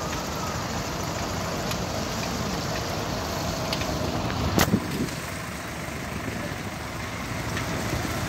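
Stalled traffic of trucks and cars idling in the rain, heard as a steady rumble. A sharp double knock comes about halfway through.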